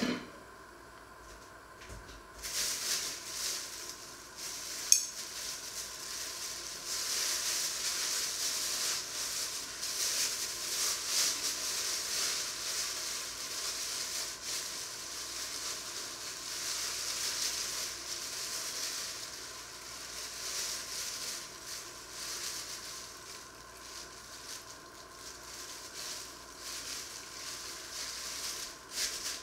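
Thin plastic bag crinkling and rustling unevenly as raw meat is worked out of it with metal tongs, with a single sharp click about five seconds in.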